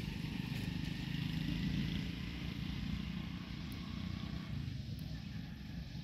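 Low rumble of a motor vehicle, likely a motorcycle, running steadily, swelling about a second or two in and then easing off.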